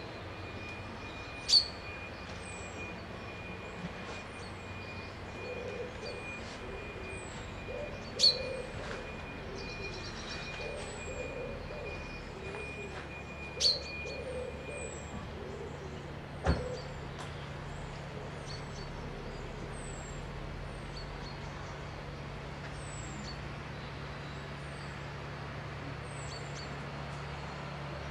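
Wild birds calling: short, high, thin chirps repeat every second or two, with a few sharp, louder calls standing out. A low, wavering cooing runs through the first half. A low steady hum comes in about halfway through.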